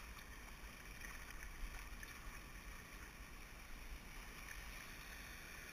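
Steady rush and splash of river water around a canoe being paddled through choppy current, with a low wind rumble on the microphone.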